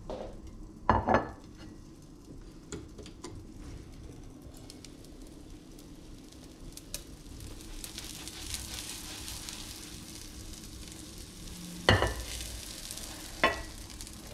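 Spinach omelette sizzling in olive oil in a frying pan, a steady hiss strongest in the middle. A ceramic plate is set down on the countertop with a double knock about a second in, and the pan clunks twice near the end as the omelette is slid onto the plate.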